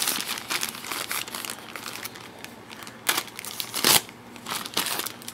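Plastic poly mailer bag crinkling and rustling as it is slit open with a folding knife and handled, with two louder crackles about three and four seconds in.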